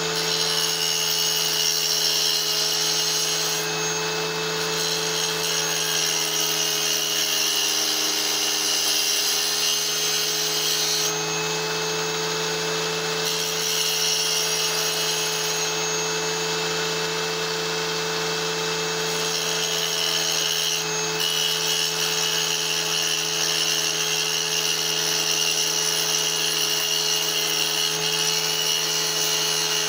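Bench-top power saw motor running steadily with a constant hum and whine while a small piece of petrified rock is pressed against its spinning blade and ground to shape.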